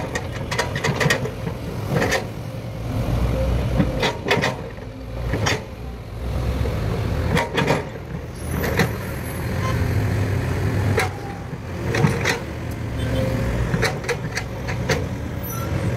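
Heavy diesel engines of a Kobelco excavator and tipper lorries running with a steady low rumble. Sharp knocks and clatters cut through every second or so.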